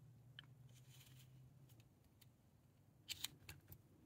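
Faint scraping clicks of a whittling knife cutting into a basswood block, with a short louder cluster of clicks about three seconds in, over a low steady hum.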